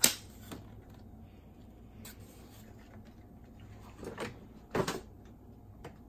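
Hard plastic clacks and knocks from a boombox's front case being lifted off and handled. A sharp clack comes right at the start, then a few softer knocks, with two close together about four seconds in.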